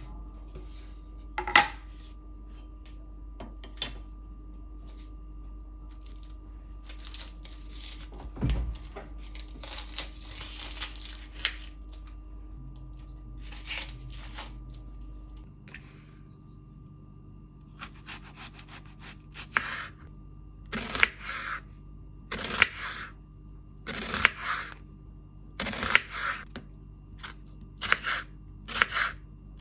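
Kitchen handling sounds: scattered clicks and a low thump, then a regular run of rubbing strokes about one a second, over a faint steady hum.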